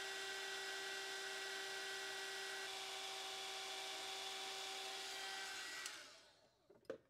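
Small heat gun blowing steadily, a fan whirr with a hiss of air, heating old binding adhesive on the back of a book signature to soften it. About six seconds in it is switched off and the whirr dies away, then a light tap follows.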